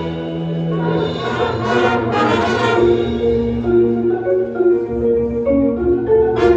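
Live music from a wind and percussion ensemble, with mallet percussion such as marimba prominent over sustained held notes.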